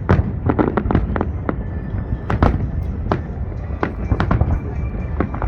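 Fireworks display going off: a rapid, irregular string of sharp bangs and cracks, several a second, over a continuous low rumble of booms.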